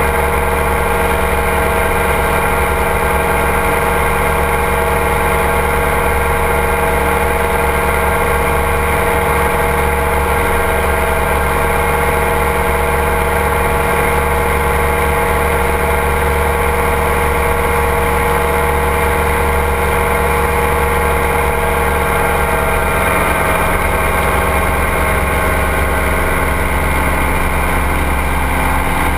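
Ultralight trike's engine and pusher propeller running steadily in cruise flight, one even drone, with the rush of air over the wing-mounted camera. The engine note shifts slightly near the end.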